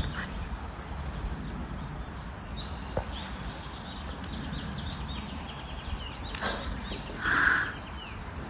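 Steady low outdoor rumble, with a bird chirping in a quick run of short repeated notes from about three seconds in. A louder, harsh half-second sound comes near the end.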